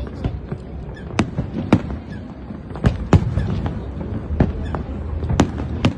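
Fireworks display: aerial shells bursting in an irregular string of sharp bangs, a few every second, over a continuous low rumble.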